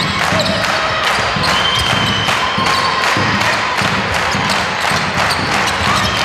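A basketball being dribbled on a wooden court floor, with repeated bounces about two to three a second. There are short high squeaks from players' shoes on the floor.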